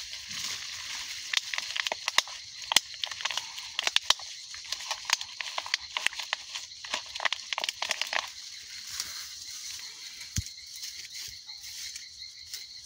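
Soil being packed by hand into a bottle wrapped around a branch for an air layer: a run of crackling and crunching that stops about eight seconds in.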